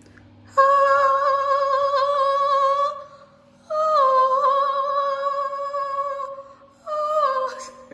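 A woman singing three long held notes with a wavering vibrato, the second starting slightly higher and sliding down, the last one short.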